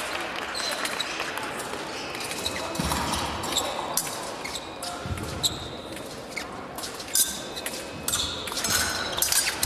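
Épée fencers in a bout: feet thudding on the piste as they advance and lunge, with short sharp clicks of blades meeting, echoing in a large hall.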